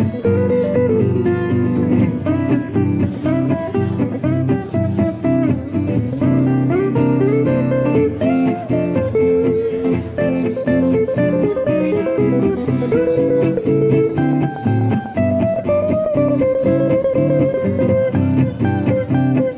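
Two archtop jazz guitars playing an up-tempo swing tune: one strums chords in a steady rhythm while the other plays a single-note melody line over it.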